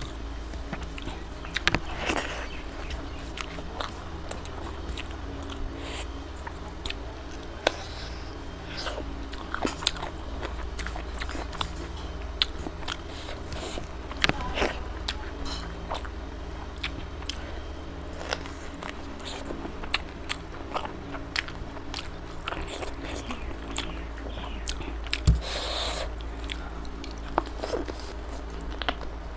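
Close-miked eating: fingers squishing rice into chicken gravy, and wet chewing and mouth smacks as scattered clicks over a steady low hum. A louder bite comes near the end as a chicken leg piece is eaten.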